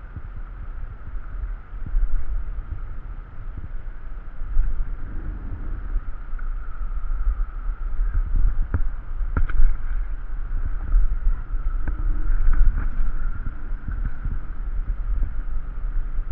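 Wind rumbling and buffeting on the microphone, with a faint steady high hum and a few scattered clicks.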